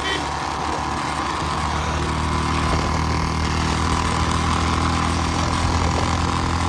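Royal Enfield Bullet motorcycle's single-cylinder engine running at a steady pace on the ride, with wind and road noise. The engine note settles and holds steady about a second and a half in.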